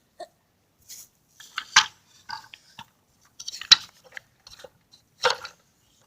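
Small hard toy pieces clattering and clicking together as they are handled, with three louder clacks about two, four and five seconds in and lighter ticks between them.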